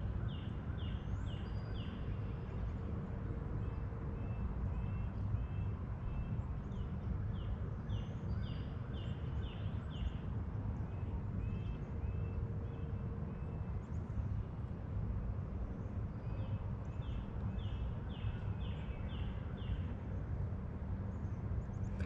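Wild birdsong: a bird repeating short staccato notes in quick runs of five to eight, three times, with scattered fainter calls from other birds. Underneath is a steady low background rumble.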